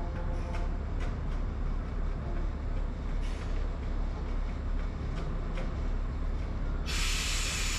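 Parked heavy truck idling with a steady low diesel rumble. Near the end a loud hiss of compressed air from its air brake system lasts just under a second.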